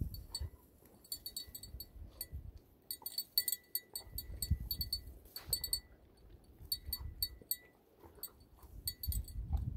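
A small bell on a dog's collar tinkling in quick, irregular jingles as the dog works its head through blueberry bushes, with bursts of low rustling from the bushes.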